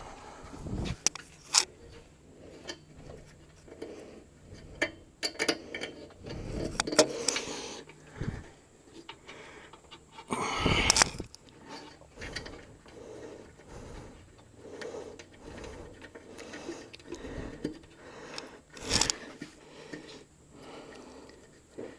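Hand tools and metal air fittings clinking and scraping during work on a truck's air-valve plumbing: scattered sharp clicks, with a louder rustle of noise about halfway through and another near the end.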